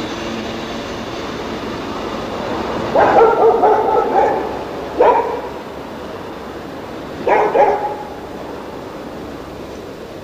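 A dog barking: a quick run of barks about three seconds in, a single bark about five seconds in, and two more near eight seconds, over steady background noise.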